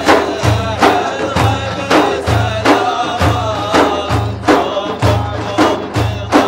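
Large frame drums beaten in a steady rhythm, deep low strokes about once a second with sharper strikes between, under men's voices chanting an Arabic devotional song (madih).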